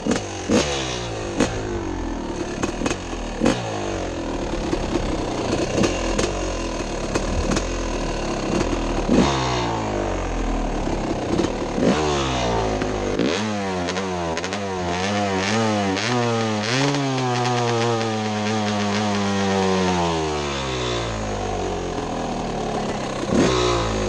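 Yamaha dirt bike engine under way, its revs rising and falling with the throttle, with sharp knocks and clatter from the rocky trail under the bike.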